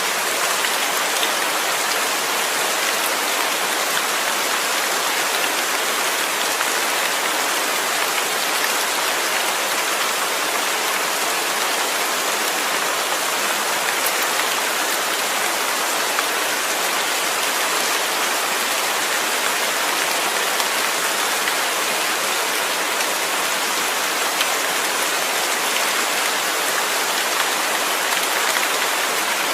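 Steady rain falling, an even hiss of many drops striking a surface with faint scattered individual drop ticks.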